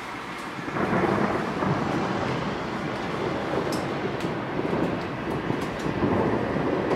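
Thunder rolling from a storm: a long, grainy rumble swells up about a second in and keeps rolling, with a few faint sharp ticks in the middle.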